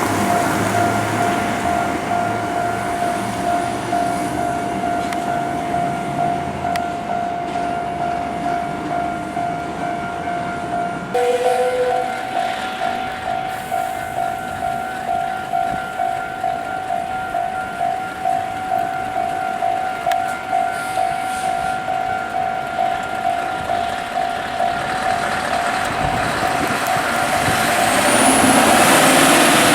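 Level crossing warning alarm ringing at one steady pitch, turning into a regular pulsing ring about a third of the way in. Under it, a heavy truck's engine rumbles and fades in the first ten seconds or so, and near the end a heavy double-trailer truck draws close and grows loud.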